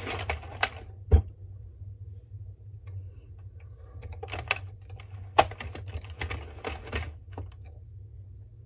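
Addi Express Kingsize circular knitting machine turned by its hand crank, its needles clicking and clattering in short, irregular runs, with one sharp loud knock about a second in.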